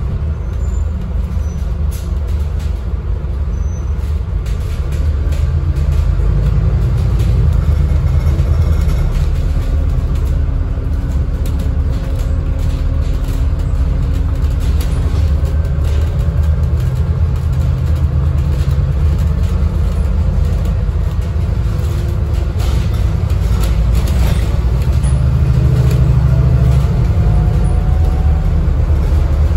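Scania N250UD double-decker bus under way, heard from inside the upper deck: the five-cylinder diesel engine and road noise give a steady low rumble, with faint whines coming and going.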